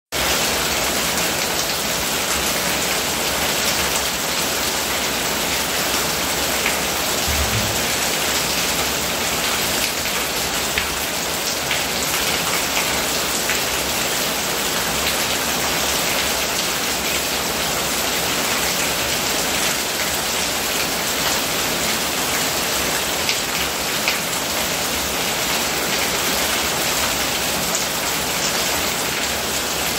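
Steady rain falling and pattering on hard surfaces, with a stream of runoff pouring off a roof edge and splashing onto stone steps.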